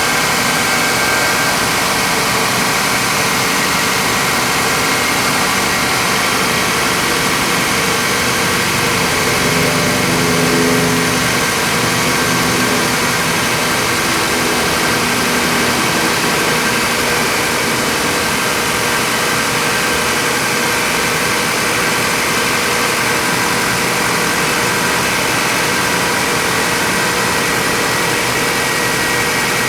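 2001 Toyota Corolla's four-cylinder engine idling steadily, briefly a little louder about ten seconds in.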